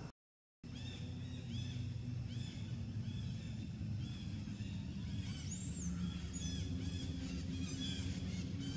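Small birds chirping over and over, short arched calls about twice a second, over a steady low hum, after a half-second dropout of all sound near the start.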